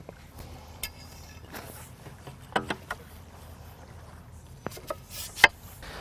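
Sections of a Sea Eagle SailCat's three-piece aluminium mast being fitted together by hand: a few light clicks and knocks, with one short ringing knock about two and a half seconds in.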